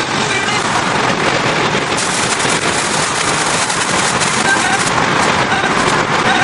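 Loud, steady rushing road and wind noise of a car travelling at highway speed, heard from inside the cabin, with a fine crackle through it.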